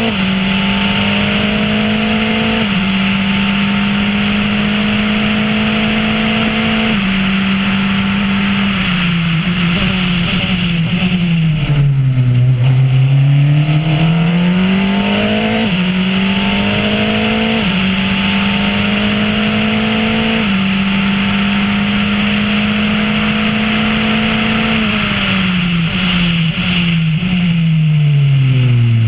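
Formula Renault race car's four-cylinder engine at racing speed. It pulls through the gears with quick upshifts, is brought down through several downshifts to a low point about 12 seconds in, accelerates back up through the gears, then downshifts again near the end. A steady rush of wind and road noise runs under it.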